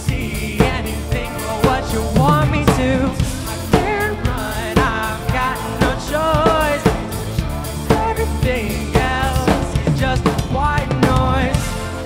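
Live pop-rock band playing a song: drum kit keeping a steady beat of kick and snare under electric guitar and keyboard, with a male lead voice singing over the top.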